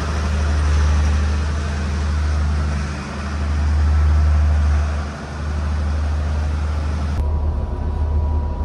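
Passenger train standing at the platform: a loud, steady low rumble that swells and dips. About seven seconds in it cuts to the inside of a carriage, with a quieter rumble and a thin steady tone.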